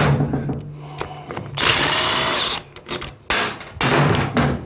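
Cordless impact driver running in two short bursts, spinning out the bottom bolt of an aluminum PowerGlide transmission's tail housing, with a few metallic knocks between the bursts.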